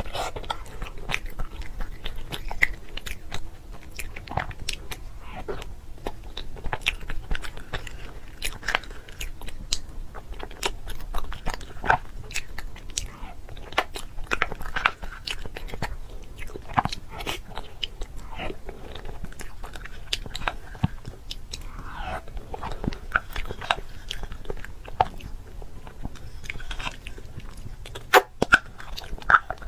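A person chewing and biting food, with many short mouth clicks and smacks, several a second, throughout.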